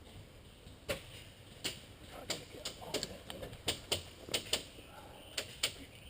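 A string of about a dozen sharp clicks and snaps at uneven intervals, coming closer together in the second half.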